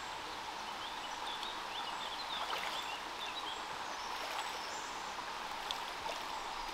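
Shallow stream running steadily over stones, a constant watery hiss.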